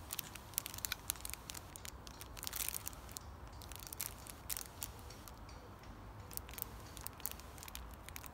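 Rustling of nylon bivvy fabric and small handling clicks and crinkles, in a quick irregular patter that thins out in the middle and picks up again near the end.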